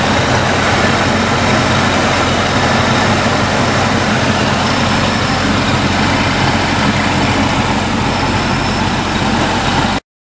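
Supercharged 5.4-litre V8 of a 2002 Ford SVT Lightning running steadily at an even engine speed. It cuts off suddenly near the end.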